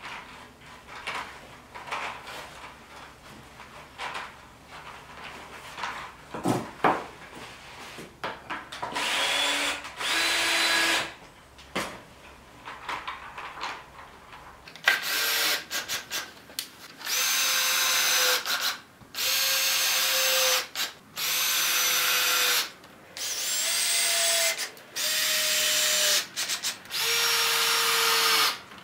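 Cordless drill driving screws into pine boards in a series of short runs, each a second or two long, with brief pauses between: one run about ten seconds in, then about seven in quick succession through the second half. Before the drilling, only light clicks and rustles as chicken wire is handled and slid into place.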